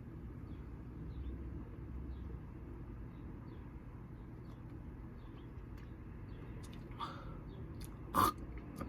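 A person drinking soda: low steady background hum, a soft short sound about seven seconds in, then one loud brief gulp near the end.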